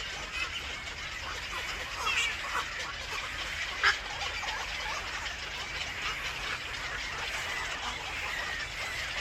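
Birds calling in short chirps and brief gliding calls over a steady background hiss, with a single sharp click a little before the middle.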